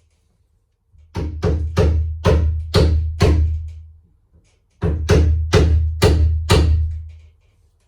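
A hammer striking a chisel to cut a latch recess into the edge of a wooden door: two runs of sharp blows, six and then five, about two a second, each leaving a short low ring.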